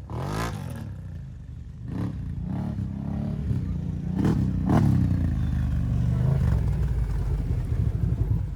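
ATV engine running under load, revving up and down twice, with scattered knocks and clatter.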